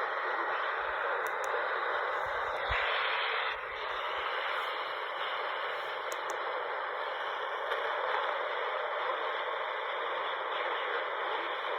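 Steady radio static hiss from a receiver with no programme audio, the noise briefly changing in character about three seconds in.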